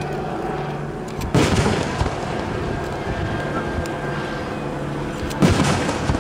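Two aerial firework shells bursting with loud booms about four seconds apart, each trailing off in an echoing rumble.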